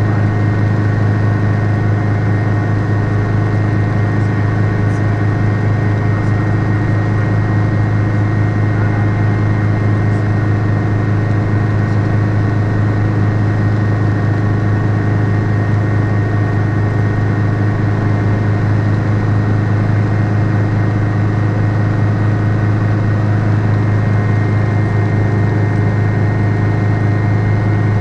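Schweizer 300C (Hughes 269C) light helicopter in cruise, heard from inside the cockpit: the piston engine and rotors make a loud, unchanging drone with a strong low hum and a thin steady high tone over it.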